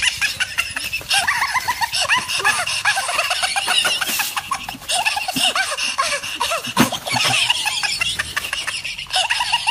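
High-pitched laughter, many short laughs overlapping one another, with a few sharp knocks; the loudest knock comes near the seven-second mark.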